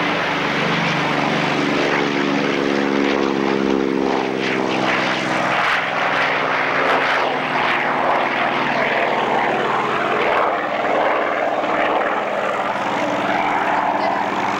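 Chance Vought FG-1D Corsair's Pratt & Whitney R-2800 eighteen-cylinder twin-row radial engine running at full takeoff power as the fighter lifts off and climbs away, a loud, steady drone. A clear pitched hum in the first few seconds gives way to a rougher, noisier sound.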